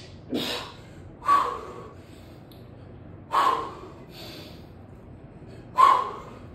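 A man's sharp, effortful breaths, four of them unevenly spaced, the breathing of exertion while he lifts and presses a pair of kettlebells.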